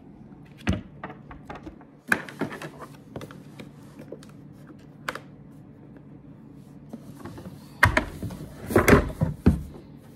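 Portable plastic camping sink being handled and turned over: scattered clicks and hollow plastic knocks, with a cluster of louder thumps about eight seconds in, over a faint steady hum.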